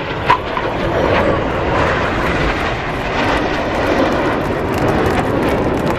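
Jet engines of several BAE Hawk trainers flying past in formation, a steady loud rushing noise with no pitch change. A brief sharp click about a third of a second in.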